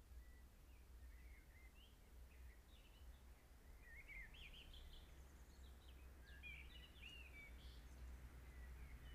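Faint songbird song: quick chirps and warbling phrases, busiest through the middle and latter part, over a steady low hum.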